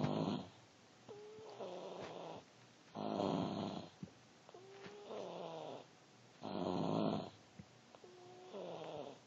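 Snoring in a regular rhythm, three cycles: each loud rasping snore is followed by a softer, whistling snore that falls in pitch.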